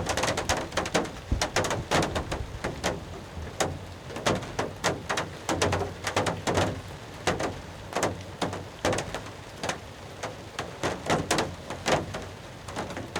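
Rain drops hitting the roof and walls of a hunting blind during a downpour, heard as a dense run of irregular sharp taps.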